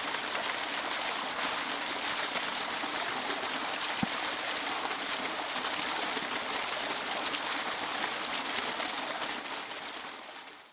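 Running water of a stream flowing steadily, fading out near the end.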